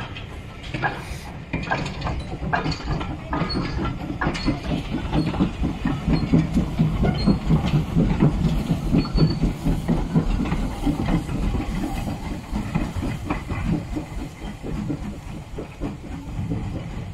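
Small steam tank locomotive working past, a rapid rhythmic clatter with hissing steam. It builds about a second in, is loudest in the middle and eases off near the end.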